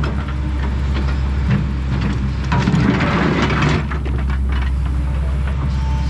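Kobelco SK210 excavator running steadily under work, with scattered knocks and clatter and a louder rush of scraping about two and a half seconds in that lasts about a second.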